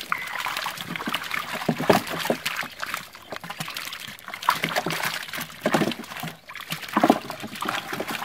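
Water splashing and trickling in irregular bursts as live fish thrash in a shallow net and are grabbed out by hand.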